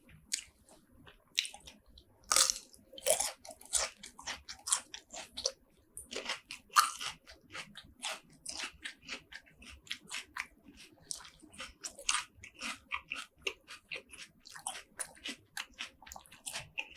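Close-miked chewing and biting of spicy seafood, with crisp crunching clicks several times a second that come thicker and faster in the second half.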